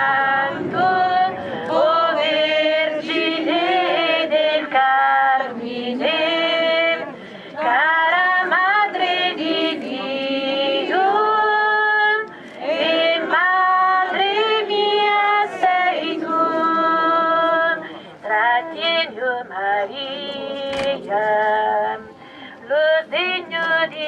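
Voices singing a religious hymn together, women's voices most prominent, in phrases of long held notes with short breaks between them.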